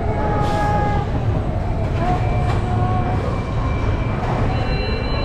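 Steady low rumble of Space Mountain's roller-coaster machinery in the loading station, with held electronic tones of the ride's ambient soundtrack changing pitch every second or so.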